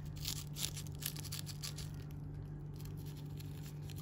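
Freshly baked cheese börek crackling in short, irregular crisp ticks as fingers press its crust, over a steady low hum. The crackling is a sign of the crisp-baked pastry.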